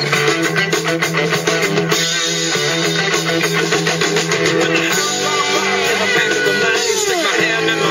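Rock-style music with strummed and plucked electric guitar, played loudly through an Arctic Cat's aftermarket audio system of Polk Marine and Kicker speakers.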